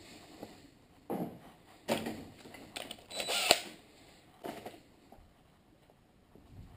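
Handling noises at a workbench: a few separate knocks and rustles as a polishing rag and a cordless drill are put down and a plastic knob is taken out of the drill's chuck, the loudest clatter about three and a half seconds in.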